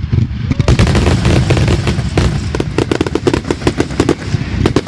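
Fireworks going off in a rapid, irregular string of sharp pops and crackles, over a steady low rumble.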